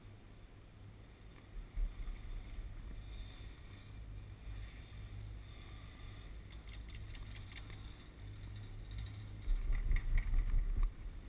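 Low rumble of wind and handling noise on the camera's microphone as knit fabric brushes against it. It surges briefly about two seconds in and again near the end, with a run of scratchy clicks.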